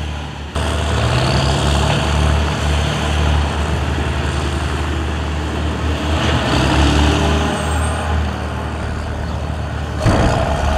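Heavy diesel engine of a wheel loader running: a deep, steady rumble that starts abruptly about half a second in and swells and eases as the machine works. Near the end, a short loud clatter as the bucket tips its load into a dump truck.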